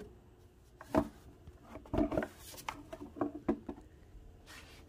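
Hollow plastic knocks and rattles of a Can-Am Ryker's factory air box being worked loose and pulled out of the engine bay: a sharp knock about a second in, then a run of clatters and light taps.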